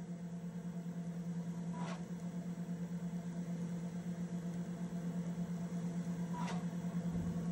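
Steady low electrical hum with faint hiss from a vintage cartridge audiovisual player running between narration lines, with two faint brief swishes, about two seconds in and near the end.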